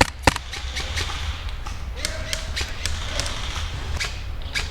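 Airsoft guns firing single shots: two loud sharp cracks at the very start, then scattered fainter cracks through the rest.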